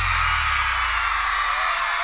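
Audience screaming and cheering as the music's last low bass note dies away in the first second; a few single high whoops stand out near the end.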